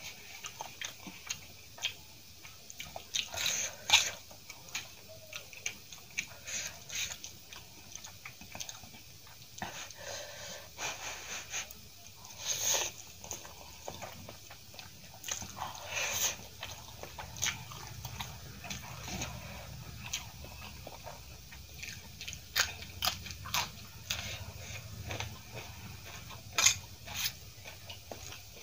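Close-miked eating of Maggi masala instant noodles: irregular chewing and biting sounds with short sharp mouth clicks scattered throughout.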